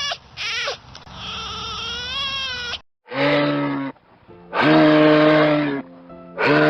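Livestock bleating: a short wavering call and then one long trembling bleat. After a brief gap a different sound follows: a steady, held, many-toned note sounding three times.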